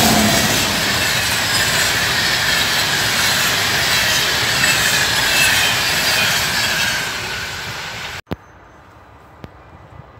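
A locomotive-hauled passenger train of intercity coaches rolling past close by at speed: a loud rush of wheels on rail with high whining tones that slide downward in pitch. It cuts off abruptly about eight seconds in, leaving only faint background.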